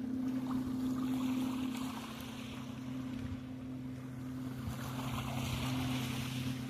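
A steady low engine drone, holding one pitch, over a background of wind and water noise.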